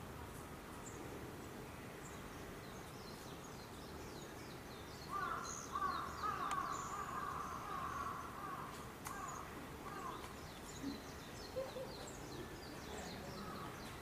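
Birds chirping in short, repeated high notes over steady outdoor background noise; from about five to ten seconds a louder, wavering call rises over them, then fades to a few short calls.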